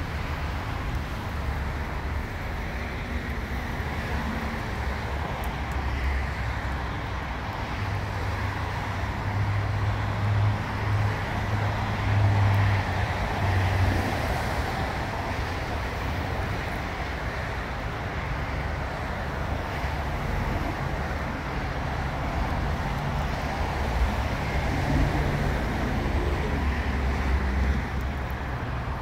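Steady traffic noise from vehicles on rain-wet roads, with a low engine hum swelling about a third of the way in and again in the last third as vehicles pass.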